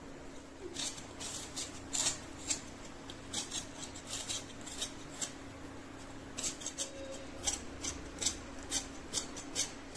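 A metal peeling blade scraping the skin off a raw potato in short, quick strokes, roughly two a second, with a short pause midway. A faint steady hum sounds underneath.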